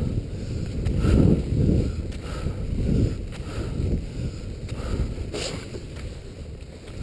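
Wind rushing over the microphone in uneven, repeated gusts, with skis gliding on a snow trail during a skijoring run.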